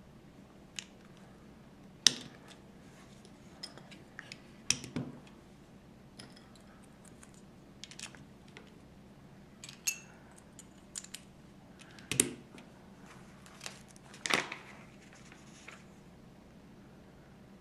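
Lego plastic bricks clicking and snapping as they are pressed onto the car's chassis: a dozen or so sharp clicks at irregular intervals, with smaller taps between.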